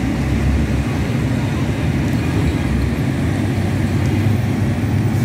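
Steady rumble of road traffic passing, with a faint murmur of voices.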